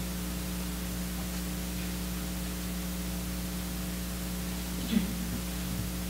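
Steady hiss with a low electrical mains hum from the recording and sound system, with no voice. A faint short sound comes about five seconds in.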